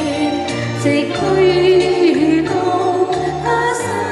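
Women singing a song into handheld microphones over musical accompaniment with a steady bass line.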